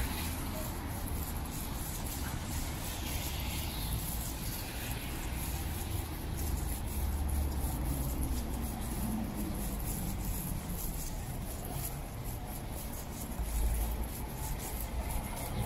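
Road traffic on a wet city street: a steady wash of tyre and engine noise with a low rumble.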